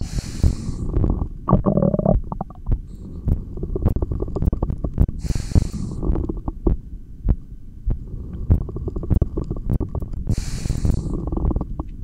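Stomach gurgling and rumbling picked up through a stethoscope, with a short growl about a second and a half in, and a breath in or out roughly every five seconds between breathholds.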